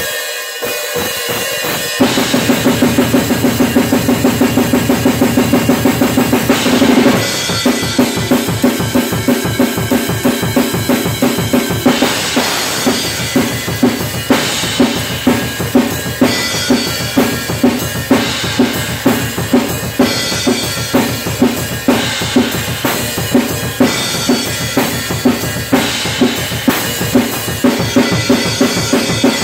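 Acoustic drum kit played hard and fast: a cymbal wash, then from about two seconds in a rapid run of even strokes, and from about seven seconds in a steady driving beat with loud accents a little under twice a second over fast bass drum and cymbals.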